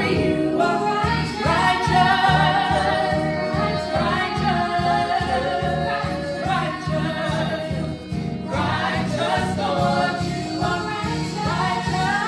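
A gospel choir singing in several parts over a steady driving beat.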